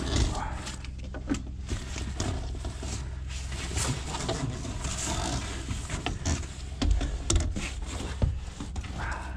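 Corrugated plastic insulation-blowing hose being pulled and handled, with irregular rustling, scraping and light knocks over a steady low hum.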